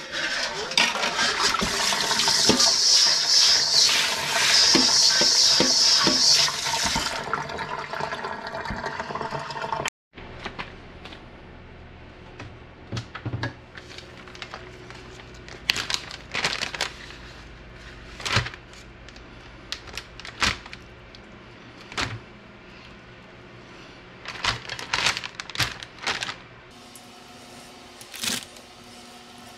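Water running from a kitchen tap into a stainless steel sink for the first several seconds, then stopping. After that, a plastic zip-top freezer bag crinkles and rustles on and off as apricot halves are packed into it for freezing.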